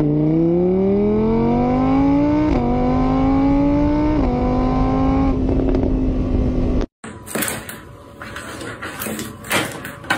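Motorbike engine sound revving up, its pitch climbing and dropping back twice as if changing gear, then holding steady before cutting off suddenly about seven seconds in. Quieter music with a few knocks follows.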